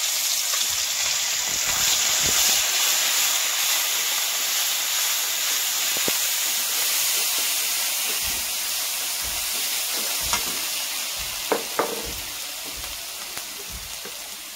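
Ground spices and spice paste sizzling loudly in hot oil in a large metal karahi as the curry masala is fried, the sizzle slowly dying down while it is stirred. A metal spatula knocks and scrapes against the pan a few times near the end.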